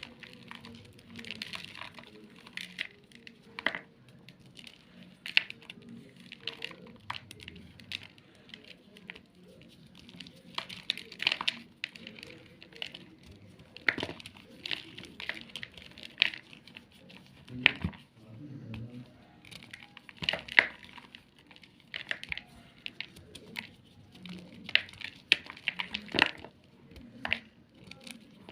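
Gym chalk being crushed, with dry crunches and crackles coming in irregular quick clusters and short pauses between them.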